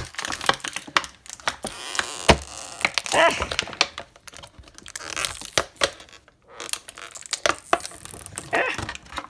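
Clear plastic blister packaging crackling and crinkling as hands squeeze and flex it to pop small toy figures out, with many sharp clicks and snaps.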